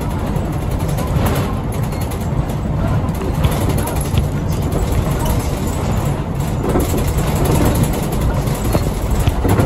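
Shimabara Railway route bus on the move, heard from inside the cabin: a steady low rumble of engine and road noise.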